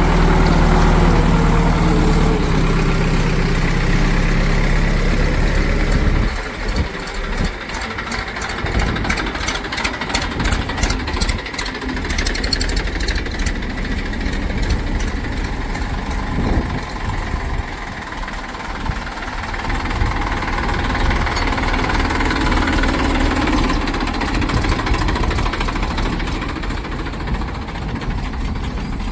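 Heavy diesel machinery engine running steadily. About six seconds in the sound drops and turns rougher and uneven, with a fast rattle for a few seconds.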